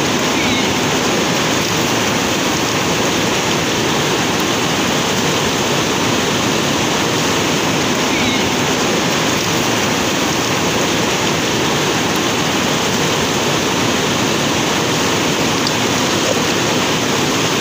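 Fast, muddy river rushing through rocky rapids: a steady, loud rush of water.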